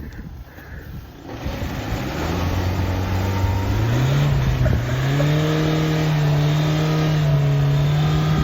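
Mahindra Thar's engine revving up: quiet at first, then about two seconds in the engine note rises in pitch and is held steady at high revs.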